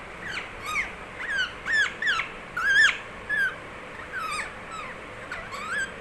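A pet parrot chirping and squeaking: a run of about a dozen short, high calls, each sliding up and down in pitch, the loudest about three seconds in.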